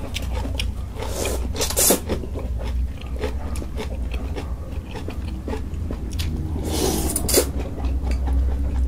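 Close-miked eating of noodle soup and kimchi: chewing and mouth sounds with many small clicks. There are louder noisy bursts about a second and a half in and again near seven seconds, over a steady low hum.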